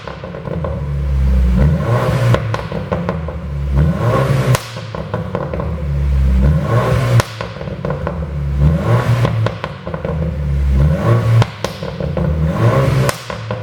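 BMW 428i's turbocharged four-cylinder engine revved again and again, about every two seconds, with crackles and pops from the exhaust each time the revs drop: the overrun pops of a pop-and-crackle tune.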